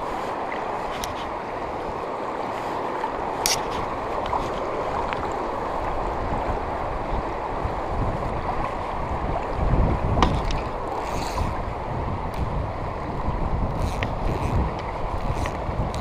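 River current rushing and lapping right at the microphone, which sits at the water's surface, a steady wash of water noise. Scattered sharp clicks come through it, and a low rumble swells briefly near the middle.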